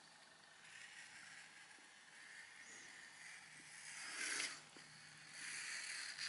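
Ink-soaked twisted rope dragged across drawing paper: a faint scratchy brushing in a few separate strokes, the loudest about four seconds in and another near the end.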